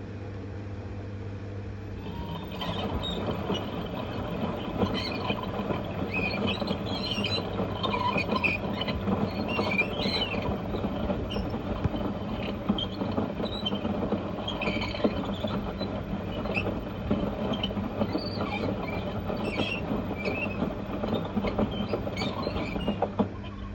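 LG F1222TD washing machine drum turning on failed bearings: a rough grinding rumble with irregular high squeals, starting about two seconds in and stopping abruptly near the end. The drum bearings and bearing seal are worn out.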